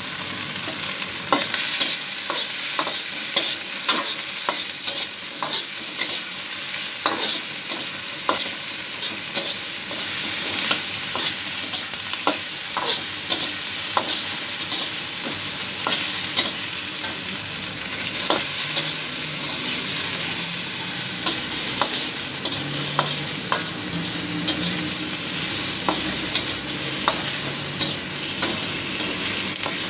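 Chicken, onion and garlic sizzling in hot oil in a steel wok while being sautéed, with a metal spatula scraping and clacking against the pan about once or twice a second.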